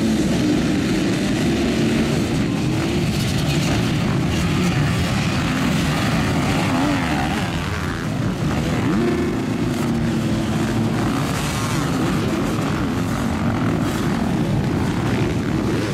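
A pack of motocross bikes running together at high revs in a mass start, their engines blending into one loud, dense drone, with a brief rise in pitch about nine seconds in.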